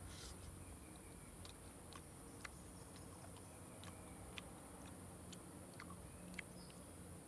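Faint chewing, with about a dozen sharp, crisp clicks spread irregularly through it, over a steady high hiss.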